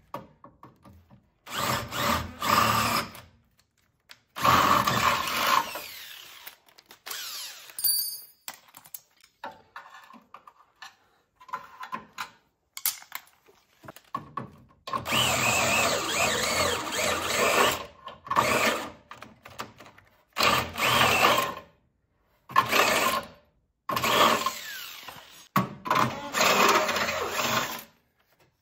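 Cordless Makita 18V drill boring holes through the steel radiator support panel, run in repeated bursts of a second or two with short stops between, first with a twist bit and then with a step drill bit enlarging the holes. Quieter stretch in the middle with only small knocks and rattles.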